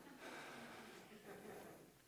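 Near silence: faint room tone on the lecture microphone, which cuts out just before the end.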